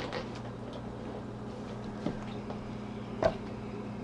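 Handling noise as a leather pouch with a horn toggle is set down on a wooden slab: two short knocks, a soft one about two seconds in and a louder one just after three seconds, over a faint steady low hum.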